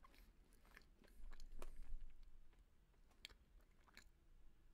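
Faint close-miked chewing of a mouthful of soft, cakey chocolate chip cookie, with small wet mouth clicks and a slightly louder stretch of chewing a second or so in.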